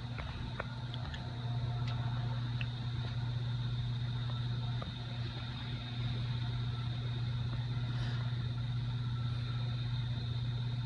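A steady low mechanical hum with a faint high whine above it, unchanging throughout, with a few faint clicks.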